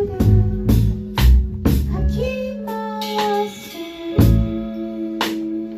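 Live band playing an improvised piece: drum kit hits over a bass line and held guitar notes, with a woman singing.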